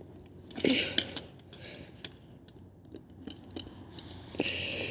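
Plastic parts of a water flosser being handled and worked apart by hand: scattered small clicks and knocks, with a short scraping rustle about half a second in and another near the end.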